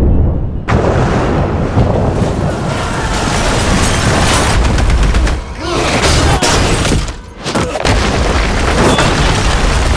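Animated-fight impact sound effects: after a brief hush, a sudden heavy boom as a body smashes into a city street and flings cars, then continuous rumbling crashes of debris. Twice more the noise drops briefly and surges again as the body skids along the pavement.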